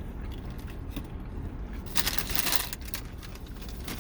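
Paper fast-food packaging rustling and crinkling, with scattered small clicks and a louder burst of crinkling about two seconds in, over a low steady rumble.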